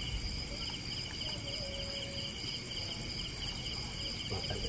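Insects chirping in the background: a steady high drone with a quick, regularly repeating pulsed chirp just below it.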